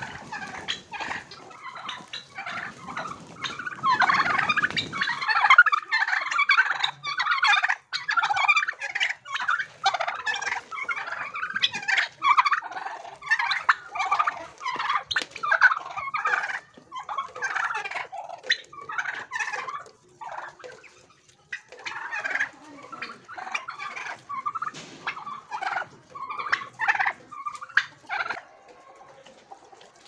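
Domestic turkeys gobbling over and over in a near-continuous chorus of rapid rattling calls, with a short lull about two-thirds of the way through.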